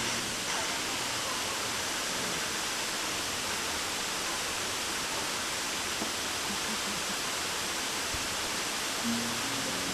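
Waterfall rushing in a steady, even roar of water. About nine seconds in, a few low held notes of music begin over it.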